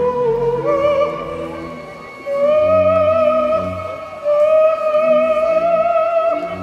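Live experimental ensemble music: a sustained high melodic line that wavers and then slides up in steps to long held notes, over a repeating pattern of short low notes.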